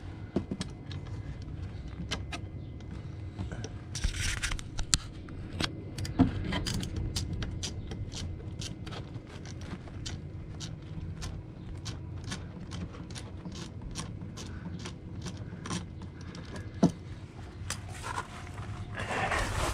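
Socket ratchet clicking in runs of quick ticks as a bolt on an outboard's lower unit is backed out, with a short scrape and clink of metal now and then.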